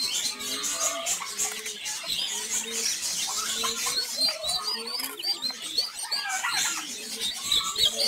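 Many young poultry chicks peeping nonstop, with short high peeps overlapping from the whole flock.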